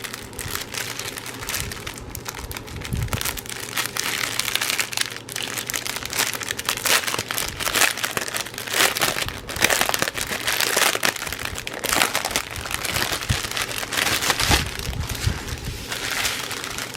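Plastic packaging crinkling and rustling in irregular bursts as the small bags of diamond painting drills are handled.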